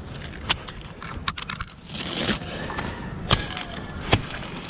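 Irregular sharp knocks and clicks, several close together about a second in, with a short rustle of palm fronds about two seconds in: a climber trimming frond bases in a coconut palm's crown.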